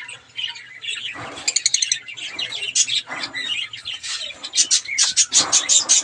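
Caged finches chirping: many short high chirps, with rapid even runs of about eight a second around a second and a half in and again near the end, over lower rustling.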